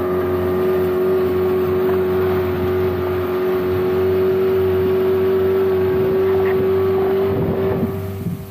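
Outboard motor of a small boat running steadily under way, one even engine note throughout; it gets quieter near the end.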